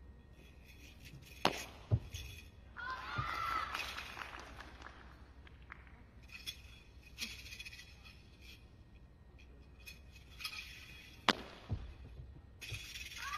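Sharp impacts from a wushu spear routine on a competition carpet: two quick hits about a second and a half in and two more about eleven seconds in, over faint large-hall ambience.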